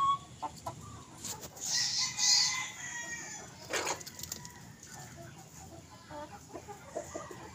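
Rhode Island White × Rhode Island Red cross chickens clucking softly and intermittently while pecking at grain. About a second and a half in there is a louder drawn-out sound lasting about a second, and just before the four-second mark there is a short, sharp one.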